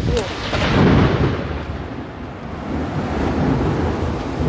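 A thunder rumble swells about a second in and dies away, over the steady hiss of heavy rain.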